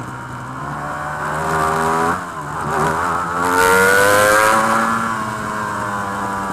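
Ducati Panigale V4 R superbike engine at race speed, heard from the onboard camera. The engine note drops sharply about two seconds in as the throttle closes, then climbs again under acceleration, loudest around four seconds in, and eases slightly near the end.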